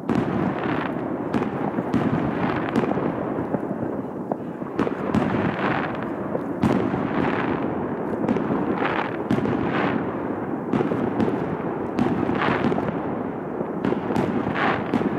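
Aerial fireworks bursting in rapid succession: a dense, unbroken run of overlapping bangs and crackle, several reports a second, from a large cake and other displays firing at once.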